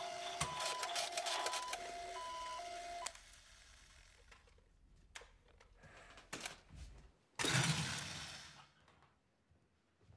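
Toy fire truck's electronic two-tone siren, high and low beeps alternating with clicks, cutting off abruptly about three seconds in. After scattered faint ticks, a loud noisy rush lasting about a second comes about seven and a half seconds in.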